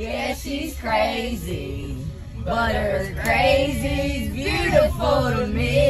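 Worship pop song playing: a singer's voice sliding between held notes over a steady bass line.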